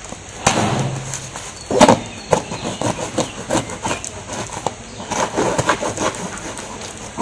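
A large kitchen knife cutting through the packing tape and cardboard of a parcel box: a run of uneven scraping and ripping strokes, the loudest about two seconds in.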